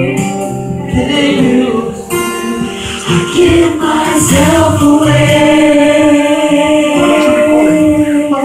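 A man singing a gospel worship song into a handheld microphone. He holds one long, steady note through much of the second half.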